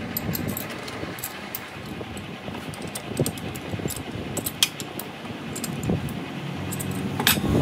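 Scattered metallic clicks and clinks as a steel workpiece is seated and clamped in a lathe's four-jaw chuck, over a steady low workshop rumble. The sharpest clank comes near the end.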